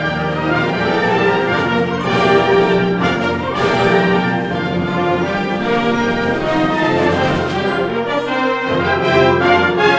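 Concert wind band playing: full, sustained chords from brass and woodwinds together. The low instruments drop out briefly about eight and a half seconds in, then come back.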